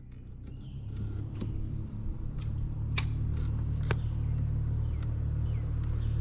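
Low, steady motor hum that grows louder over the first couple of seconds and then holds, over a constant high insect buzz. Two sharp clicks stand out about three and four seconds in.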